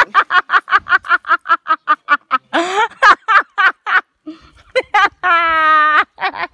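A person laughing in a fast, even run of short 'ha-ha' pulses, about six a second, for the first two seconds or so. A few seconds later comes one long held vocal cry at a steady pitch.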